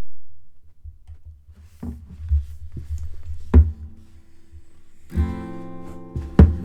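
Acoustic guitar intro: a few sharp plucked hits over low thumps, then a chord strummed about five seconds in that rings on.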